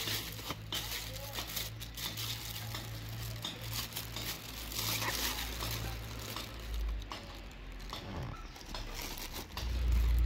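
Plastic bubble wrap crinkling and crackling as it is handled, in many short irregular crackles. A loud low rumble begins near the end.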